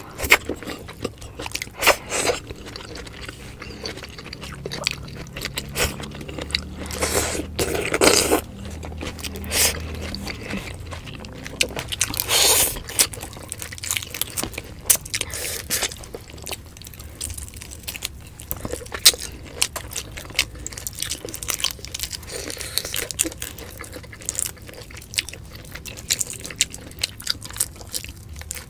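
Close-miked mukbang eating: two people chewing and biting food, with many short sharp crunches and smacks.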